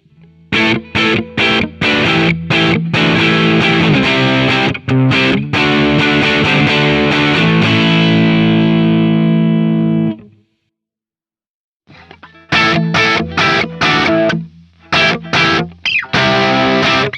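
Distorted electric guitar played through Amplitube's basic JCM amp model, a Marshall JCM simulation. Short choppy stabs lead into a chord left ringing, which is cut off about ten seconds in. After a silence of over a second, choppy stabs start again.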